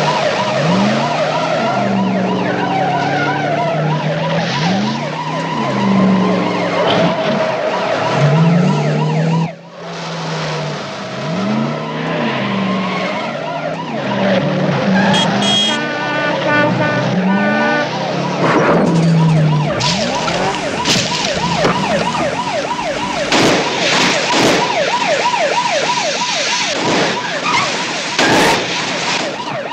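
Car chase: car engines revving hard and tyres squealing as the cars slide, with a police siren wavering rapidly throughout. Several sharp bangs in the last third, as of cars crashing.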